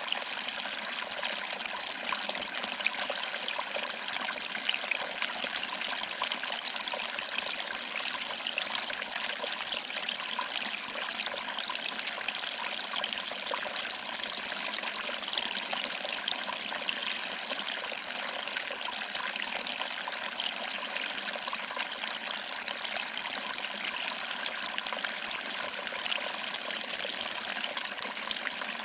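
Small waterfall trickling over rocks and splashing into a pool, a steady even rush of water.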